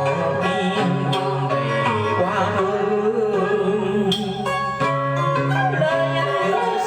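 Traditional Vietnamese cải lương music with plucked string instruments carrying a wavering melody over a steady bass line.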